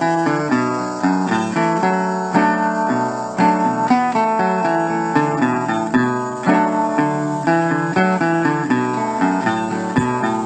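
Acoustic guitar music: a steady run of plucked and strummed notes, each starting sharply and dying away.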